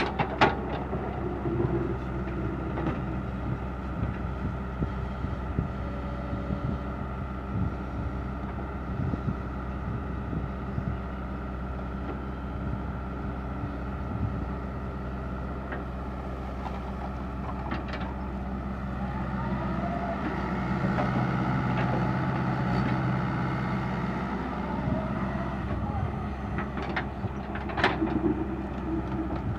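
Komatsu PC60-5 excavator's diesel engine running steadily while digging, swelling under hydraulic load about two-thirds of the way through. A few sharp knocks stand out, the loudest near the end.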